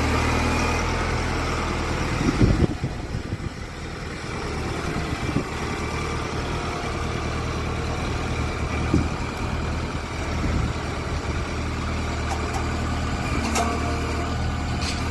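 A heavy machine's engine running steadily at idle, with a loud clunk about two and a half seconds in and a few lighter knocks later.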